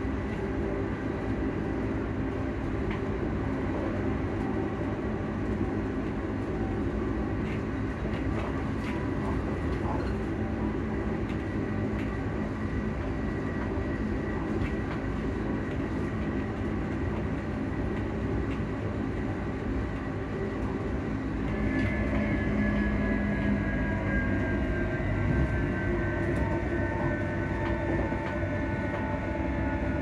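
Alstom electric train running, heard from inside the passenger carriage: a steady rumble of wheels on track under the hum of the traction equipment's cooling fans. About two-thirds of the way in, a cluster of high whining tones comes in and slowly falls in pitch.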